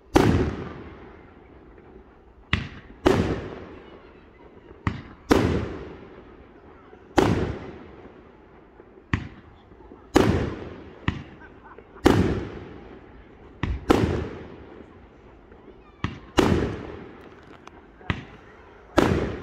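Aerial fireworks display: a steady series of loud bangs, about one every one to two seconds, each fading away over about a second, with shorter, sharper cracks between them.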